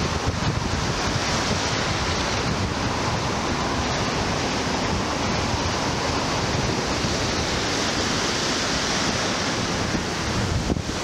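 Rough sea surf breaking steadily on the shore, with strong wind buffeting the microphone.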